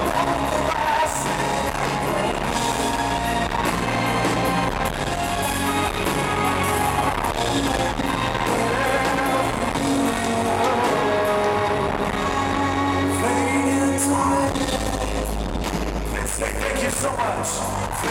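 Live band performance: a male lead singer singing over a strummed acoustic guitar and drums.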